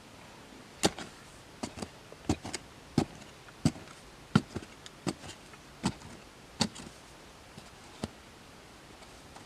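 A series of about a dozen sharp chopping strikes, roughly one every two-thirds of a second and uneven in strength.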